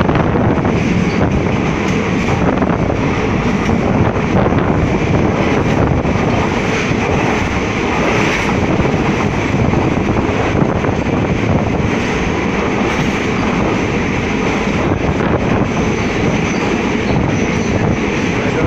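Passenger train running through a tunnel, heard from inside the carriage: a loud, steady noise of wheels on rail and running gear, with no let-up.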